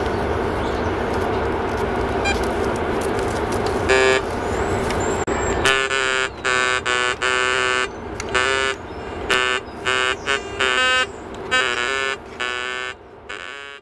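White's DFX metal detector sounding a run of short, buzzy beeps, about a dozen, starting about six seconds in, as a 14 karat gold earring is passed over its search coil: the detector is picking up the gold. Before that, a steady rushing background noise with one short beep about four seconds in.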